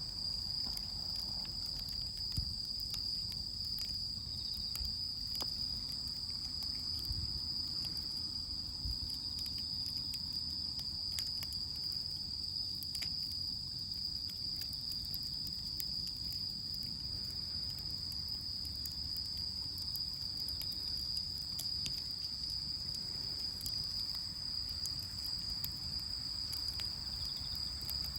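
Steady high-pitched chorus of insects singing without pause. Scattered faint crackles come from a wood bonfire, and a low rumble sits underneath.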